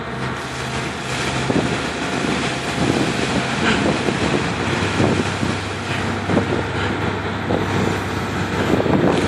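Excavator diesel engines running steadily, with wind on the microphone.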